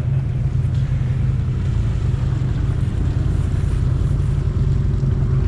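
ATV engine running steadily, a constant low hum with no revving.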